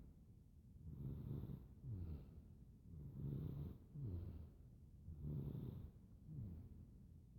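A baby snoring in its sleep: three breaths about two seconds apart, each a low snore followed by a shorter one that falls in pitch.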